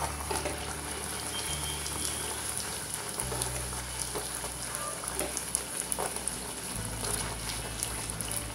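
Bhatura deep-frying in hot oil in a kadai: a steady sizzling hiss with scattered crackles and pops.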